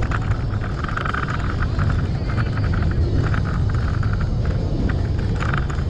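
Motorcycle engine running steadily under way, with a continuous low rumble and wind noise from riding.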